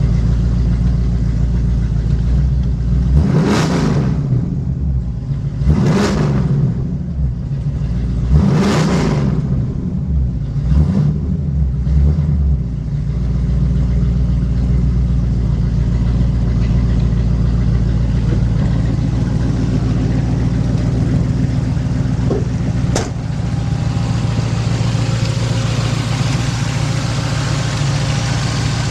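Ford 351 Cleveland Cobra Jet V8 revved in four short throttle blips, three strong and a smaller one, in the first dozen seconds, then idling steadily.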